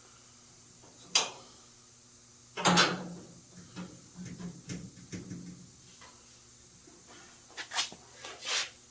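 Scattered metal knocks and clicks of hand work on a car door and its hinges. A sharp knock comes about a second in and a louder clatter near three seconds, then a run of light ticks and two more knocks near the end.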